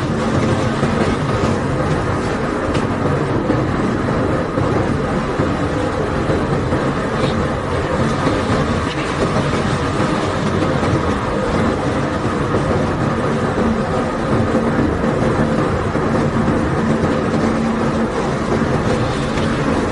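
Unloading machinery of a bulk barge running steadily as limestone is discharged: a loud, continuous mechanical hum with several steady tones under a dense, rough rushing noise.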